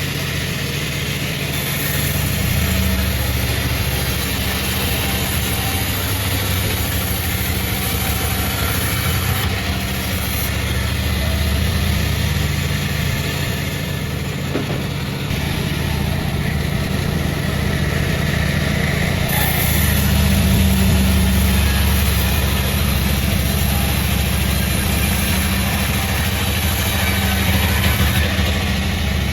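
Sawmill machinery running: a steady, loud, low engine-like drone with a hiss over it, growing a little louder about two-thirds of the way through.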